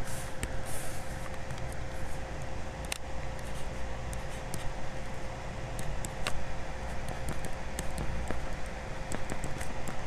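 Steady background hiss and low hum of a recording setup, with a faint steady tone through it and scattered soft clicks, like a stylus tapping and drawing on a tablet.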